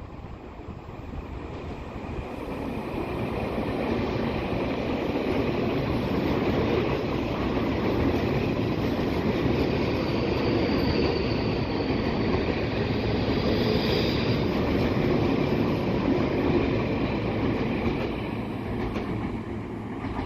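A Tobu Skytree Line train passing through the station at low speed without stopping: the rumble builds over the first few seconds, stays steady for about fifteen seconds with a faint high tone in the middle, then fades as the train clears the platform.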